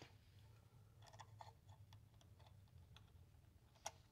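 Near silence: faint scattered clicks and taps of pliers working a wire lead on a metal TV chassis, with one sharper click near the end. A faint low hum runs underneath.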